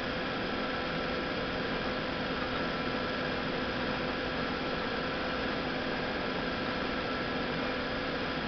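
Cincinnati Milacron 2H 100 Cintimatic CNC horizontal bed mill running: a steady hum with a few held tones over an even hiss, unchanging, as its spindle quill slowly retracts.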